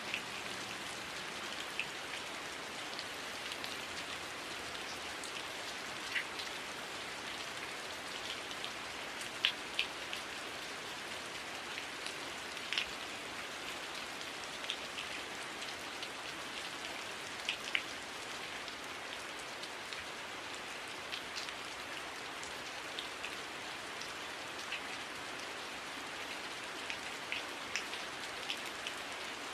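Heavy rain falling steadily, an even hiss scattered with sharp ticks of individual drops striking nearby surfaces.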